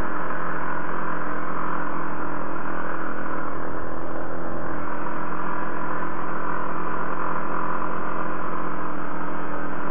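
Tracked Yamaha ATV, fitted with Commander WS4 snow tracks, running at an even cruising speed over snow: a steady engine drone whose pitch holds level throughout.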